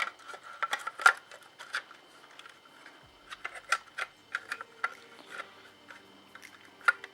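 Irregular sharp clicks, taps and light scraping as a circuit board is worked back into the plastic housing of an HVAC control unit. The loudest clicks come about a second in and near the end.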